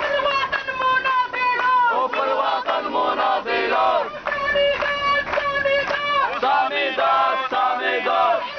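Crowd of protesters chanting slogans, with loud, drawn-out shouted syllables repeating one after another.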